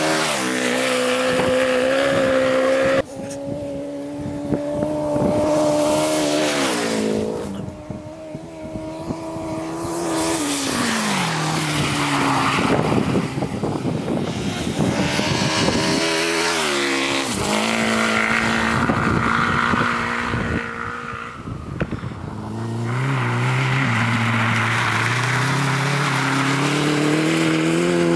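Suzuki Hayabusa's inline-four engine running under throttle, its pitch dropping a few times and climbing again toward the end as the revs change, with a rushing hiss in the middle stretch.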